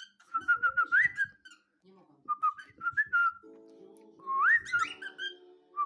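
Young cockatiel whistling its first song: three short phrases of chirpy whistled notes, each with quick upward glides. A steady low humming tone sounds underneath for about two seconds in the second half.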